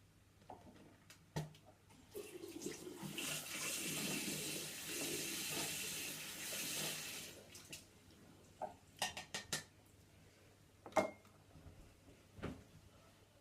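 Water running for about five seconds, then several light knocks and clicks.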